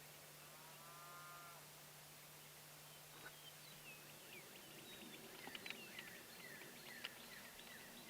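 A cow moos once, faint and drawn out, near the start; from about three seconds in, small birds chirp in quick falling notes.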